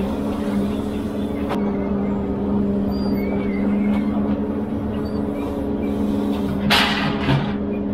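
Ponsse Elephant forwarder's diesel engine and crane hydraulics running with a steady drone while the crane works. A short loud rushing noise comes near the end.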